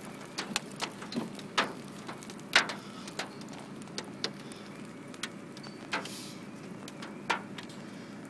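The tail end of a hail shower striking the car: scattered sharp taps on the roof and windscreen, a few a second and irregular, with a faint steady hum underneath.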